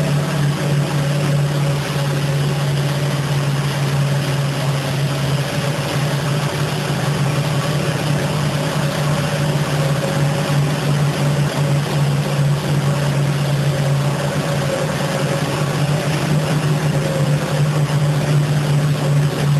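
Automatic carpet-washing machine running: its motor-driven rotating brush heads scrub a soaked carpet under water spray, making a steady hum over an even hiss of brushes and water.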